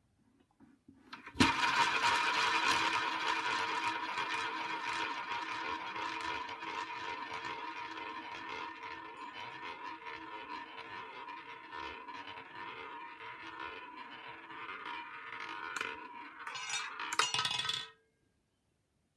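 A roulette ball launched around the wooden track of a Dal Negro mahogany roulette wheel, rolling with a steady whir that slowly fades. Near the end it clatters as it drops off the track, bounces among the deflectors and frets and settles into a pocket.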